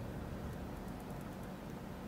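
Faint, sparse clicks and scrapes of a lock pick working the pins inside an Assa Maximum+ padlock cylinder, over a steady low hum.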